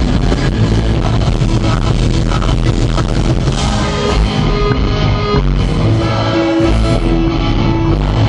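A rock band playing live and loud: electric guitar, bass and drums through the stage amplifiers, with vocals sung into microphones.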